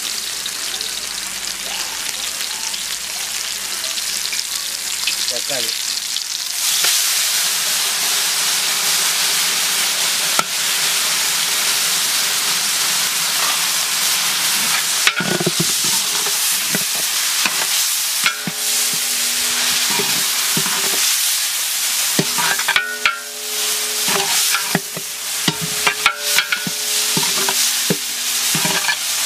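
Food frying in hot oil in a large metal cooking pot, sizzling steadily and getting louder about seven seconds in. From about halfway through, a long metal spatula stirs and scrapes against the pot, giving repeated clanks that make the pot ring.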